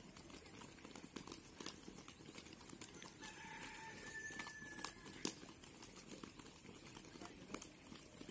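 Faint, irregular patter of many children's feet running on grass, with two sharper knocks about five seconds in.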